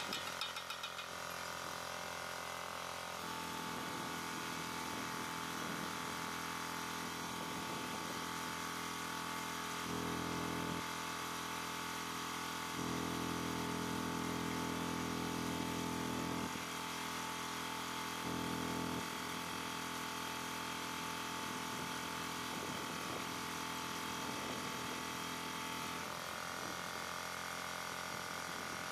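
Steady electric machine hum with a high whine, swelling into a louder low hum three times: briefly about ten seconds in, for several seconds about thirteen seconds in, and briefly again about eighteen seconds in.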